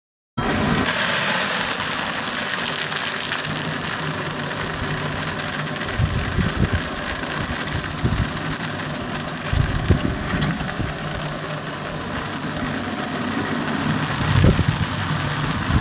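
Engine-driven beet crusher/feeder running steadily, with a low hum and a few heavier knocks about six, ten and fourteen seconds in.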